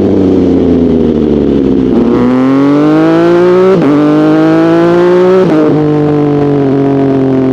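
Sport motorcycle engine and exhaust under way. The revs fall, then it accelerates, the pitch climbing with a brief dip at each of two upshifts, about four seconds in and again a second and a half later, then it runs on at a steady speed.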